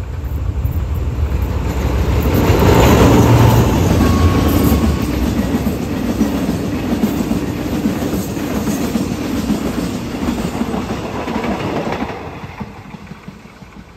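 Diesel-hauled freight train passing. The locomotive's engine rumble is loudest a few seconds in, then the wagon wheels clatter over the rail joints, fading away about twelve seconds in.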